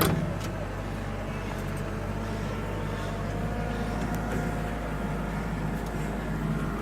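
Engine of a farm vehicle running steadily at an even speed, with a low hum and no change in revs.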